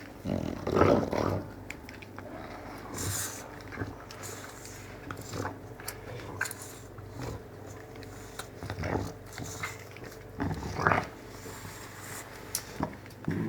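Bulldog snoring while awake: irregular snorting, rasping breaths every second or two, the loudest about a second in and again near the end.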